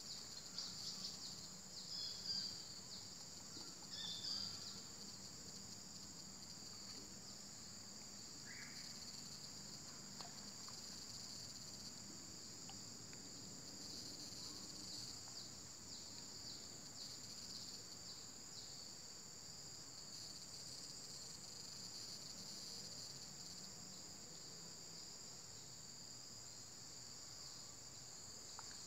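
Steady, high-pitched insect chorus buzzing without a break, with a few brief louder chirps in the first four seconds.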